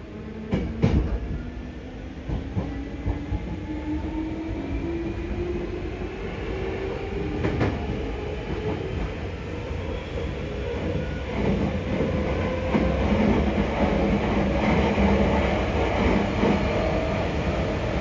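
Hankyu 5300-series resistance-controlled train heard from inside the car, its traction motors humming and rising steadily in pitch as it accelerates. Wheels clack over rail joints under a running rumble, with a few sharp knocks about a second in.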